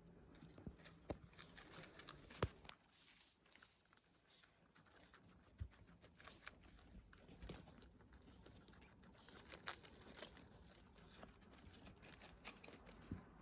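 Guinea pigs eating: faint, irregular crunching, tearing and rustling of food, with sharper clicks now and then.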